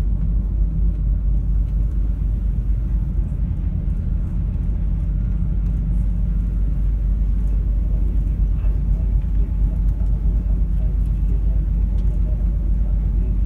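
Steady low rumble of a car ferry's engines and hull, heard aboard while the ship is under way.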